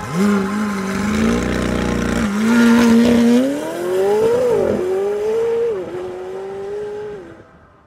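McLaren 720S twin-turbocharged 4.0-litre V8 accelerating hard away. The revs climb and drop back at gear changes, about four and a half and six seconds in, then the sound fades as the car pulls into the distance.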